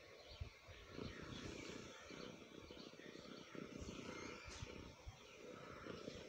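Domestic cat purring right at the microphone, a low fluctuating rumble, with fur rubbing against the phone.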